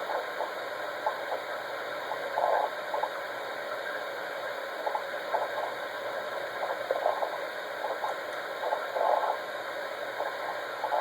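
Computer keyboard typing in irregular clusters of short taps and clicks while a login is entered, over a steady background hiss.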